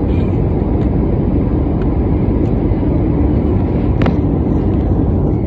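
Steady low rumble of an airliner's cabin noise, with a faint click about four seconds in.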